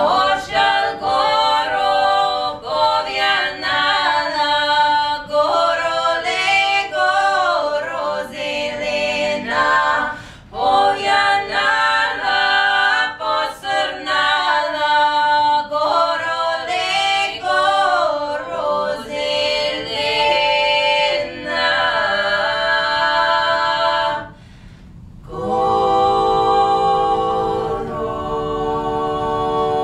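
Three women's voices singing a cappella in close harmony: a traditional Western Bulgarian song. The melodic phrases pause briefly twice, about ten seconds in and again near 24 seconds, and the last few seconds are one long held chord.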